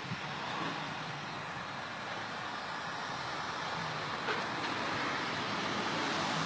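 Wagner heat gun running with a steady blowing hiss, held close to faded black plastic fender trim to warm it and restore its colour.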